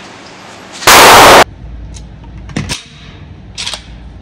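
A single gunshot at an indoor shooting range, about a second in, so loud that it overloads the recording. A few much fainter sharp clicks and knocks follow.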